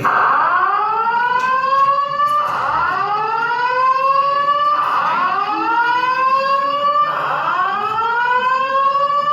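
Fire alarm voice-evacuation system sounding its whoop tone: a rising sweep in pitch, repeated about every two and a half seconds.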